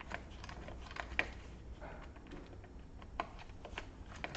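Screwdriver working a screw out of the HP EliteBook 8470p's plastic case: faint, irregular clicks and light scrapes, several a second.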